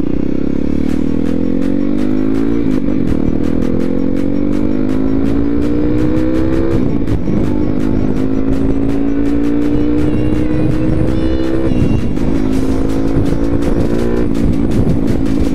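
Honda XR250 Tornado single-cylinder engine, kitted out to about 290 cc with a 34 mm flat-slide carburettor, pulling the bike away under acceleration. Its pitch climbs steadily through each gear and drops at each upshift, about four times.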